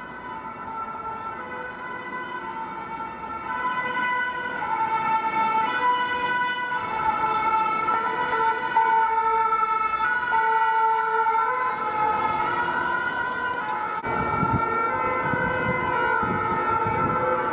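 Several French fire brigade two-tone sirens sound together, out of step with each other, growing louder over the first few seconds as the emergency vehicles approach. A low rumble joins about fourteen seconds in.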